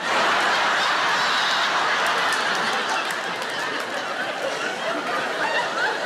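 A large audience bursts into laughter all at once and keeps laughing loudly, easing off a little part way through.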